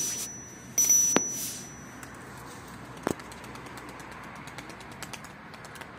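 Subscribe-button sound effect: a whoosh and click with a high bell-like ding, repeated about a second in, the ding ringing out for about a second. After it a steady faint outdoor hiss, with one sharp click about three seconds in.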